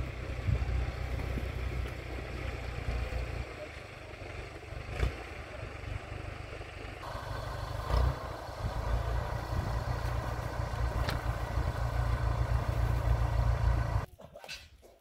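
A tractor engine running under a heavy low rumble, with a few sharp knocks. The sound changes abruptly about halfway through and falls away suddenly near the end.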